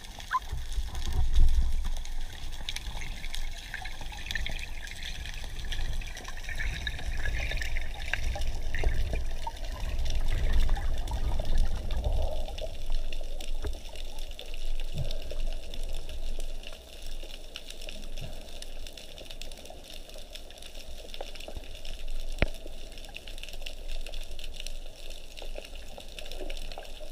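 Underwater water noise: water rushing and bubbling past the camera with a deep rumble, and scattered small clicks.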